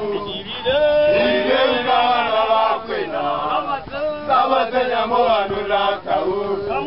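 A group of male football supporters chanting and singing a terrace song together, several voices in unison.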